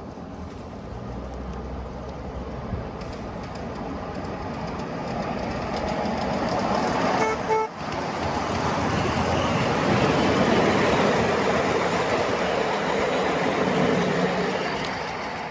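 A 5-inch gauge ride-on miniature train running on its track, its rumble growing steadily louder and easing off near the end. Two short horn toots sound about seven seconds in.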